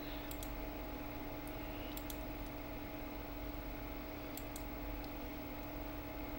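Computer mouse clicking, about eight irregular clicks, some in quick pairs, over a steady low hum in the room.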